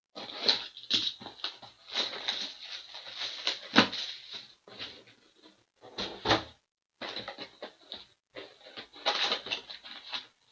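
Packaging being handled: irregular crinkling, rustling and light clicks of plastic wrap and a cardboard card box and packs.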